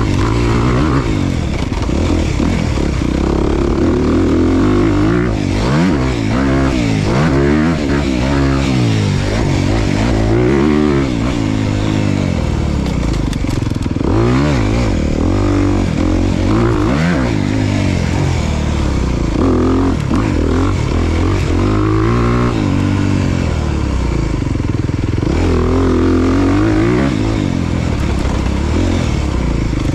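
Off-road motorcycle engine revving hard, its pitch climbing and dropping again and again as the throttle is worked.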